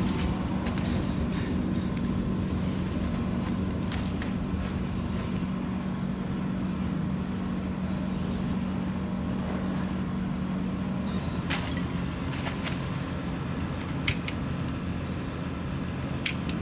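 Wood campfire crackling, with a few sharp, widely spaced pops. Under it runs a steady low hum that stops about two-thirds of the way through.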